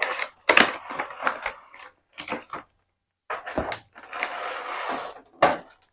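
A toy helicopter's box and packaging being handled as the contents are taken out: irregular rustling, scraping and sharp clicks and knocks, with a longer scrape about four seconds in.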